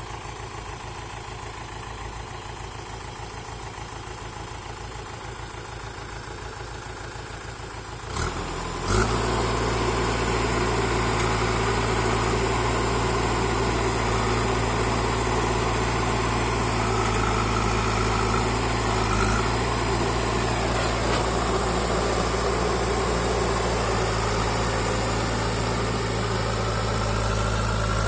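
Heavy vehicle diesel engine idling. About eight seconds in it steps up abruptly to a louder, steady run that holds to the end.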